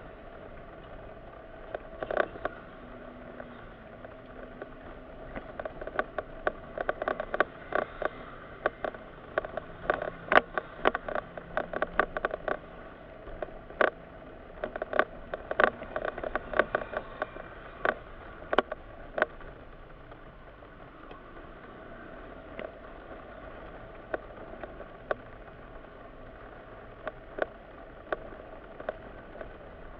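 Inside the cabin of a moving Mitsubishi SUV: a steady road and engine hum with many irregular clicks and small rattles, densest through the middle stretch.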